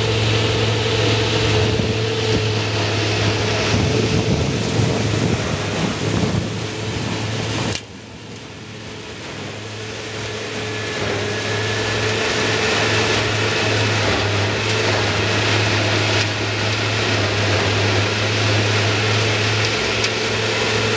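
Tractor-driven Haybuster 2650 bale processor running, shredding a hay bale, over the steady drone of the tractor engine. The sound drops abruptly about eight seconds in and builds back up over the next few seconds.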